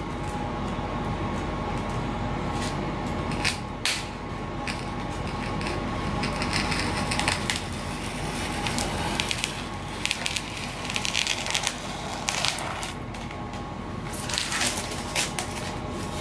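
A sharp hobby knife cutting through the laminating film and foam of a model aircraft wing to free the aileron, heard as scattered crackling and tearing scrapes in several short stretches over a steady faint hum.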